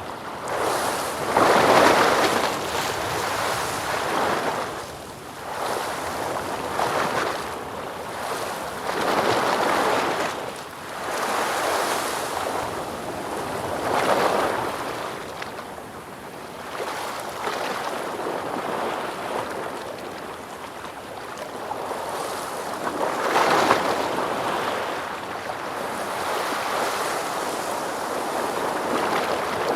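Ocean waves breaking and washing in, a steady hiss of surf that swells and ebbs every few seconds, with the strongest breaks about two seconds in and again past the three-quarter mark.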